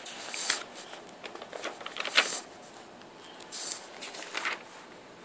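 Comic book pages rustling and crinkling as a page is turned by hand, in several short bursts.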